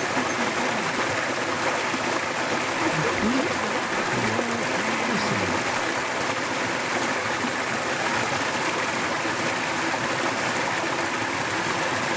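Stream water flowing in a steady rush, swirling in small whirlpools.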